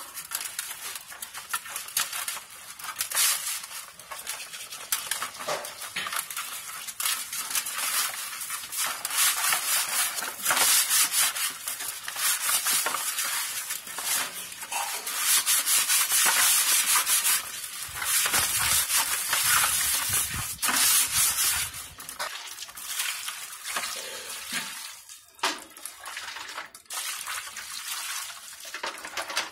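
Coarse salt crystals grinding as hands scrub a murrel (snakehead) fish's skin against an aluminium basin, in rapid repeated rubbing strokes that come and go in waves, a scouring that strips the slime from the skin. Near the end, water splashes as the fish is rinsed.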